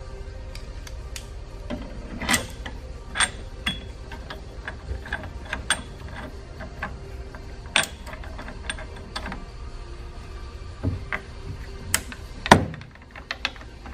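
Security-bit T-handle driver turning bolts into a truck rack's aluminum crossbar and upright, with scattered metal clicks and taps as the tool engages and turns, and a sharper knock near the end.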